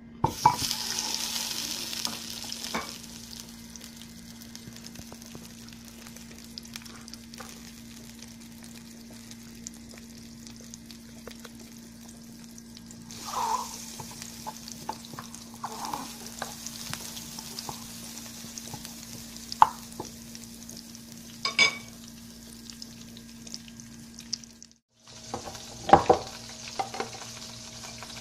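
Butter sizzling as it melts in a hot frying pan: a sharp sizzle as it hits the pan, settling after a couple of seconds into a steady hiss, over a steady low hum. A few sharp clicks and knocks come near the end.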